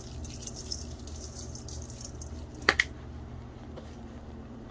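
Stovetop cooking sounds: a faint hiss over a steady low hum, and two sharp clicks close together just under three seconds in, a kitchen utensil knocking against the pan.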